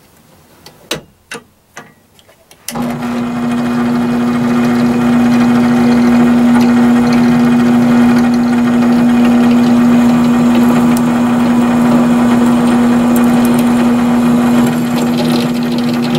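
Benchtop drill press motor switched on about three seconds in and running with a loud steady hum. A few light clicks come first, as the part is handled in the drill vise.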